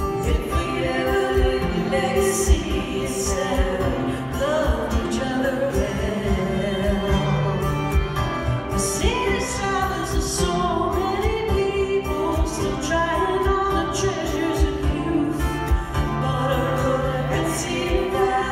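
Live acoustic folk music heard from the audience: two acoustic guitars and a fiddle playing, with singing.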